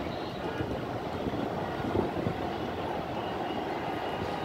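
Distant city traffic: a steady hum of vehicles with a slight swell about two seconds in.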